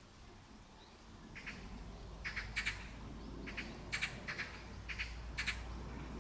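A bird chirping in short clusters of quick chirps, repeating about every second from about a second and a half in, over a low steady hum.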